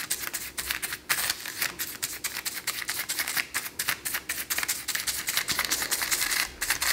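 Pastry brush bristles sweeping excess flour off parchment paper, a rapid run of short scratchy strokes with a couple of brief pauses.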